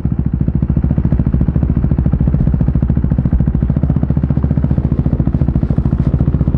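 KTM RC390's single-cylinder engine idling through an aftermarket barrel exhaust with the dB killer removed: a loud, steady, evenly pulsing exhaust note.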